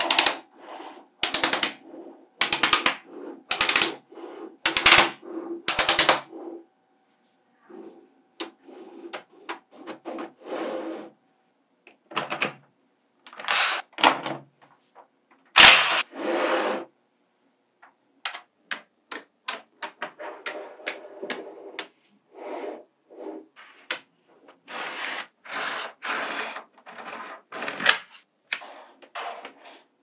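Small magnetic balls clicking and clattering as strips of them are snapped together, pulled apart and set down on a table. Sharp rattling clicks come about once a second for the first six seconds, then shorter irregular clicks and rattles.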